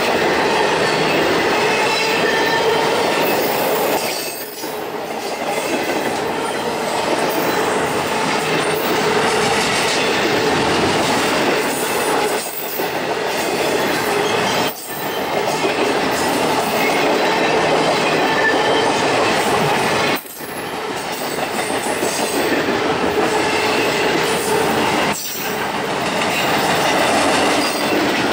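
Double-stack intermodal freight train's container well cars rolling past at close range, a steady noise of steel wheels running on the rails. The noise dips briefly several times, a few seconds apart.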